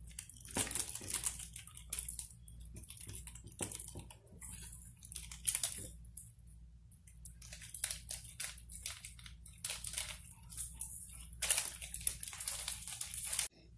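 A cloth rubbing over a metal earring tree in irregular strokes, with small clicks and rattles from the hanging earrings and the stand.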